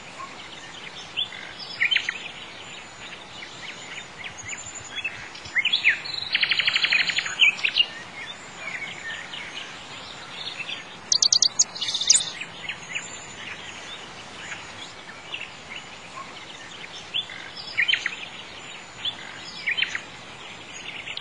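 Several songbirds chirping and calling, with a rapid trill about six seconds in and a higher, faster trill around eleven seconds, over a steady background hiss.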